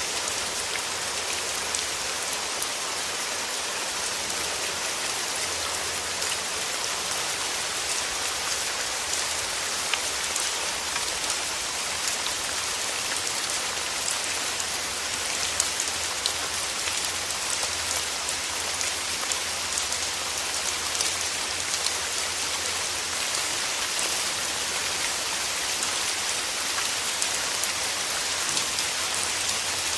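Steady rain falling, with fine drop ticks on a surface and no let-up.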